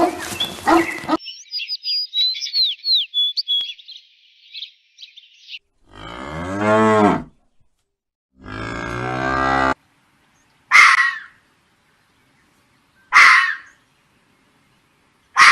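Cattle mooing twice, each moo about a second and a half long, after a few seconds of high chirping. Three short, higher animal calls follow, a couple of seconds apart.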